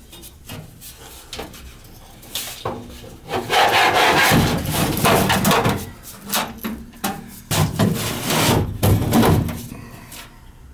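Irregular scraping and rubbing with a few short knocks, as parts are handled and shifted. The two loudest stretches come about a third of the way in and again past the middle.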